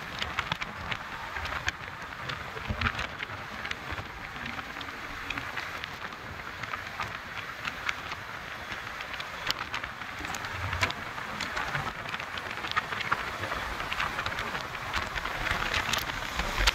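Road noise heard from a vehicle moving at speed close beside an intercity coach: a steady rushing hiss of wind and tyres, with frequent small crackles.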